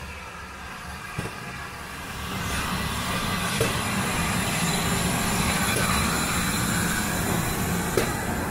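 Ex-GWR steam locomotive and its coaches passing slowly close by, the rumble growing louder about two seconds in as the engine draws level. A few sharp clicks from the wheels on the track.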